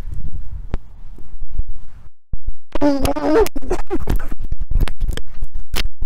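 Rough rumbling and scratching noise on the camera's microphone as it is jostled. A short wavering yell comes about three seconds in, followed by a quick irregular run of sharp scratchy clicks.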